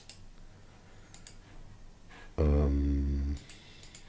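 A man's short hummed "hmm", held for about a second in the middle, with a few computer mouse clicks before and after it.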